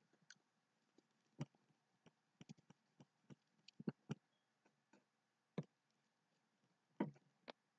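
Near silence broken by faint, irregular clicks of a computer mouse, scattered through the quiet as a digital painting is worked on stroke by stroke.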